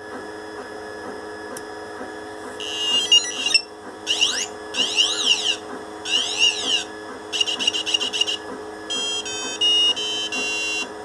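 DF Robot Maqueen robot's buzzer playing a string of electronic sound effects, starting a few seconds in: warbling beeps, rising and falling pitch sweeps, a fast trill, then short stepped tone patterns. A steady low hum runs underneath.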